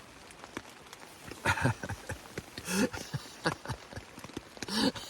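A young dog under a blanket makes three short whining grumbles, each sliding in pitch, over scattered light ticks.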